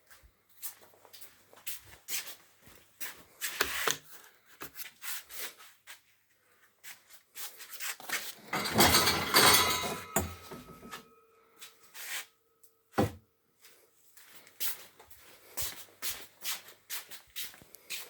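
Scattered knocks, clicks and rubbing as objects are rummaged through and handled, with a longer, louder clatter about eight seconds in and a single sharp knock near the middle.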